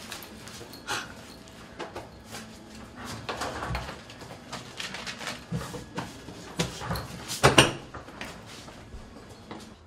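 Scattered knocks, clicks and rustles of someone handling things at a wooden shop counter, the loudest a sharp knock about seven and a half seconds in.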